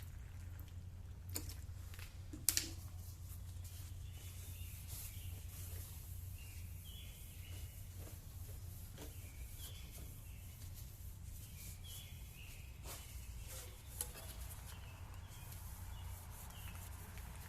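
Faint bird chirps against a steady low hum, with a few sharp knocks, the loudest about two and a half seconds in.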